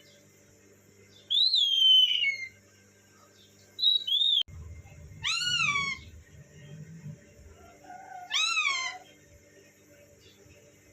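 A pet parrot calling: four loud calls in about eight seconds, each rising then falling in pitch.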